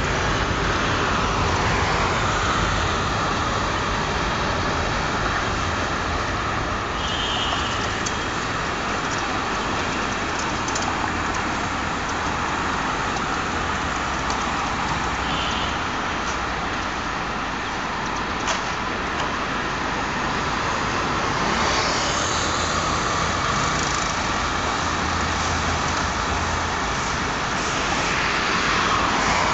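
Steady traffic-like rumble and hiss, with a CRH1B high-speed electric multiple unit drawing near along the line. Near the end the sound grows louder as its cars start passing close by.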